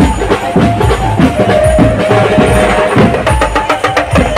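Loud festival music with fast, driving drum beats and a held note in the middle, the strokes quickening after about three seconds.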